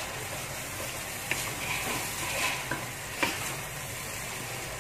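Raw prawns sizzling in hot oil and chili paste in a wok, stirred with a wooden spatula. Three or four short knocks from the spatula against the wok, the loudest a little past the middle.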